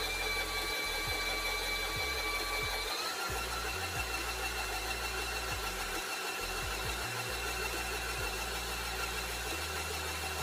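Electric stand mixer running with a steady motor whine while whipping the egg white and sugar meringue. About three seconds in, the whine steps up in pitch as the mixer is turned up toward high speed.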